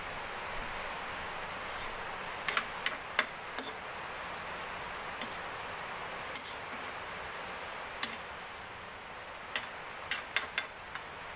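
Metal ladle clinking and knocking against an aluminium wok while pork is stirred, in scattered strikes with small clusters about two and a half seconds in and again near the end, over a steady hiss.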